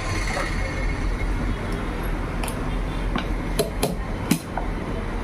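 A hammer tapping the metal of a domestic sewing machine while it is being set: about six sharp, irregularly spaced taps, the loudest three close together in the second half.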